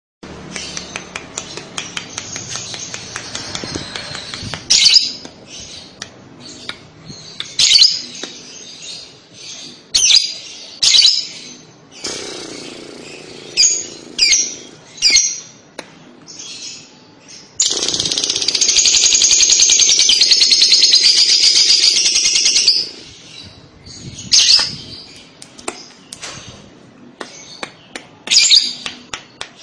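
Fischer's lovebird singing: sharp, shrill chirps at irregular intervals, and in the middle one loud, continuous high chattering trill lasting about five seconds, the lovebird's 'ngekek' song.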